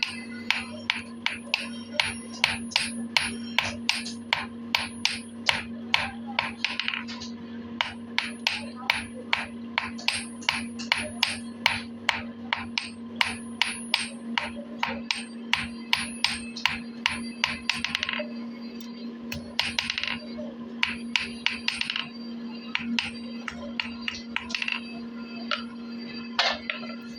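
Hammer striking steel in a fast, even rhythm, about three blows a second, each with a bright metallic ring, with a few short scrapes between runs. A steady low hum runs underneath.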